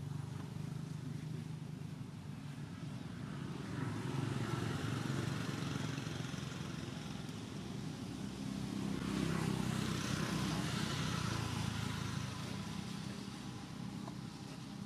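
Motor vehicle traffic passing: a steady low engine rumble that swells twice, about four seconds in and again at about nine seconds, each time with a rising hiss of tyres and wind.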